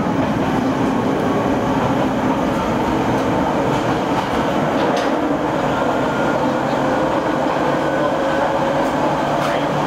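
Izuhakone Railway 5000 series electric train running at speed, heard inside motor car MoHa 5014: a steady rumble of wheels on the rails and running gear under the floor, with a faint steady whine and a few light clicks.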